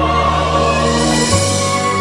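Music of long held notes; the bass moves to a new note just over a second in.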